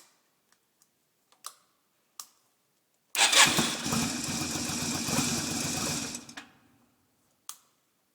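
A few clicks, then the starter cranking a Yamaha Virago XV250's V-twin for about three seconds without it catching, with a steady high whistle over the cranking: the start-up whistle that appears after the bike has been rolled with the engine off. It cuts off suddenly, followed by a single click.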